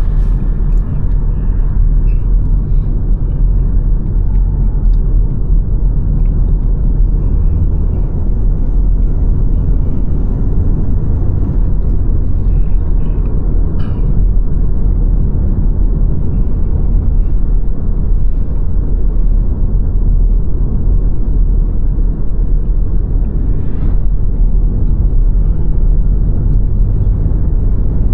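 A car driving at a steady speed: a continuous low rumble of tyres on the road and the running engine, with no change in pace.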